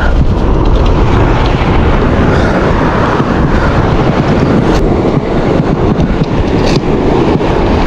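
Strong wind buffeting the microphone in a loud, steady rumble, with a couple of sharp clicks about five and seven seconds in.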